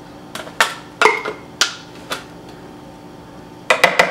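A spoon knocking and tapping against a plastic blender pitcher while cornbread batter is spooned out into a muffin tin. A few separate knocks come in the first two seconds, then a quick run of taps near the end.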